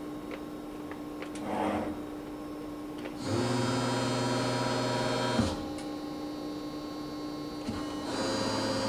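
Cincinnati 60-ton hydraulic CNC press brake cycling under palm-button control. A steady hydraulic hum is heard throughout. About three seconds in, a louder, pitched machine note sets in as the ram strokes. It cuts off with a sharp click a couple of seconds later and starts again near the end.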